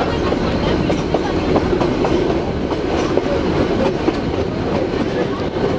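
Nilgiri Mountain Railway carriage rolling along the metre-gauge track, heard from inside by an open window: a steady rumble with a continual light clatter of wheels over rail joints.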